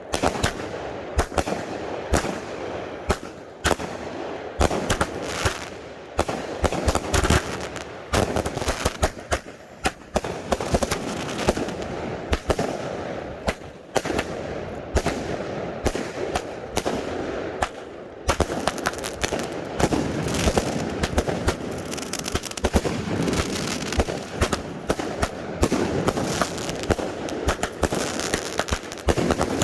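Consumer firework cakes firing: a dense, irregular string of sharp bangs and pops.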